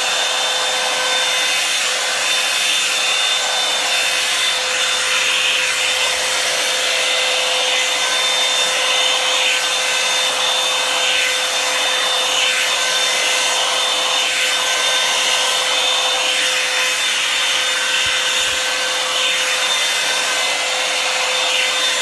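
Revlon Salon Hair Dryer and Styler, a paddle-brush hot-air dryer, running steadily on its high setting: a constant rush of air with a fixed motor hum, its bristles rubbing through hair as it is drawn along.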